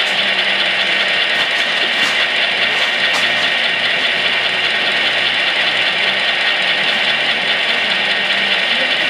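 Sound-equipped HO scale EMD F7A model diesel locomotive standing still with its prime mover sound idling steadily through the model's small onboard speaker.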